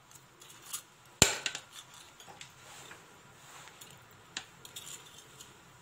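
Kitchen utensils clicking and knocking on a hard surface, most likely the metal hand lemon squeezer against the plastic chopper bowl: one sharp knock just over a second in, then a few lighter clicks near the end.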